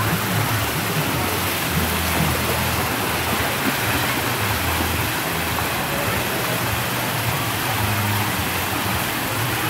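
Splash-pool fountain jets spraying, a steady rush of falling water, with faint distant voices under it.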